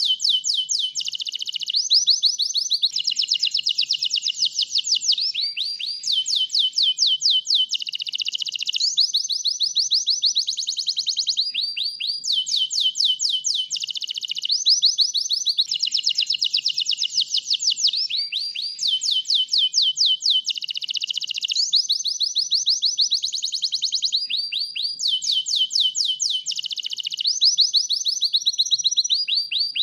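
White canary in full, continuous song: long rolling trills, each a run of one fast-repeated note held for a second or two before switching to a new note type.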